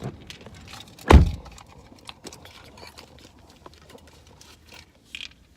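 One heavy thump about a second in, followed by scattered light clicks and rattles.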